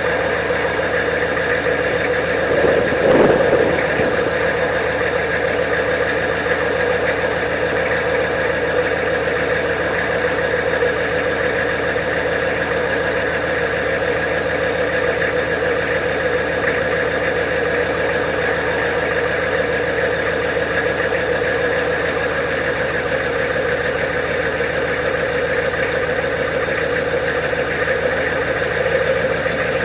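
Straight-piped 6.5-litre Detroit Diesel turbo V8 running steadily, with a brief swell and quick rise and fall in pitch about three seconds in.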